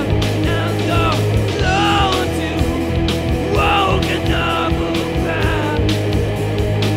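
Rock song from a band's demo recording: singing over guitars and drums, with regular drum hits and a loud, steady band sound throughout.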